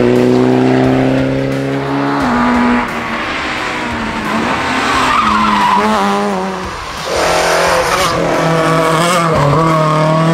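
Rally car engines running hard through tight bends, with a drop in pitch about two seconds in as the driver shifts or lifts, and tyre squeal partway through. After a short dip the engine note of a second car takes over.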